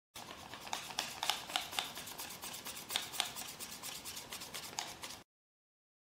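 Paper origami flapping bird worked by hand, its folded wings and body rustling and crinkling, with irregular sharp crackles. It cuts off suddenly about five seconds in.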